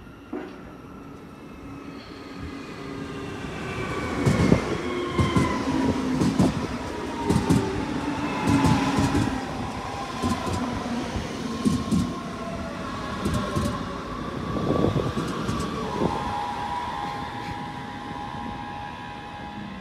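DB class 423 S-Bahn electric train running in close past the platform, its traction motors giving several whining tones that fall in pitch as it slows. Irregular wheel clacks over rail joints and points come through the middle, and a steadier whine remains near the end.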